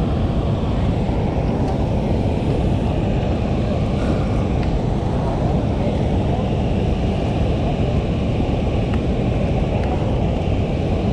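Steady rushing of water pouring through a dam's open floodgates and churning in the tailwater, a constant deep noise.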